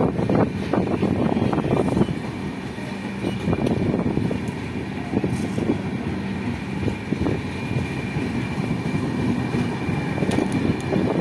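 Passenger train running along the track: a steady rumble of wheels on rail, dense with quick rattles and clicks, over a thin steady whine.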